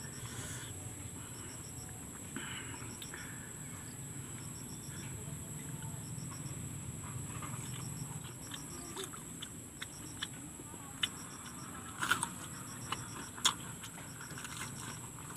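Mouth sounds of someone eating crispy batter-fried big chili peppers: chewing, with several sharp crunches in the second half, the loudest near the end. A steady high drone and short groups of high chirps run underneath.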